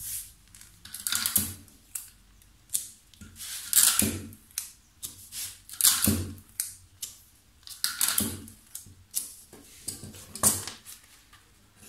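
Sheets of paper pattern pieces rustling and crackling as hands smooth, press and tape them flat on the table: a run of short, irregular scrapes and crinkles, one every second or so, with quiet between.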